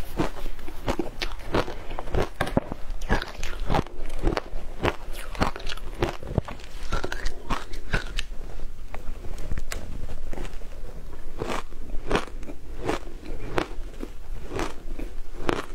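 Frozen matcha ice being bitten and chewed: a steady, irregular run of sharp crunches, several a second.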